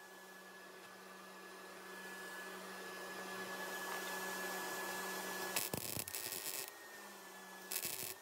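Wire-feed (MIG) welder striking short tack welds on thin sheet metal: a crackling burst of the arc lasting about a second, starting five and a half seconds in, and a shorter one near the end. Under it runs a steady electrical hum with a thin high whine.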